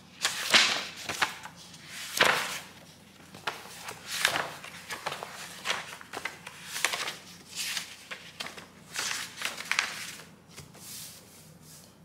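Paper pages of a book being leafed through, a series of short rustles about one a second.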